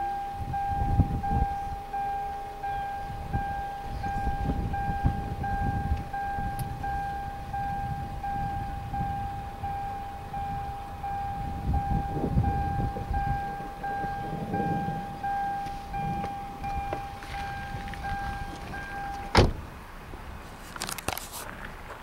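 Storm wind buffeting the microphone in irregular low gusts, over a steady high tone that cuts off with a sharp click about nineteen seconds in.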